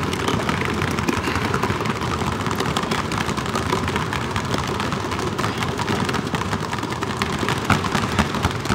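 Several basketballs being dribbled rapidly on a hardwood gym floor, a dense, uneven patter of many overlapping bounces.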